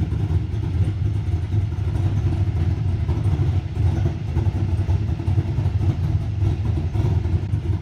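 Steady low rumble of an engine idling.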